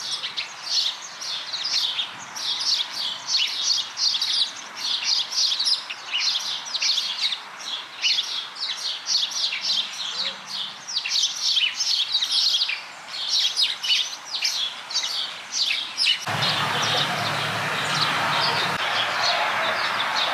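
Songbirds chirping rapidly and continuously in many short, high notes. About 16 seconds in, the chirping gives way to a steady rushing noise with a low hum.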